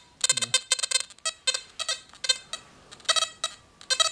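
XP Deus metal detector chattering with its 11-inch coil: a rapid, irregular run of short electronic beeps with no target present. These constant false signals are the coil's noise at default Deus Fast settings, sensitivity 90, loud enough to drown out faint and deep target signals.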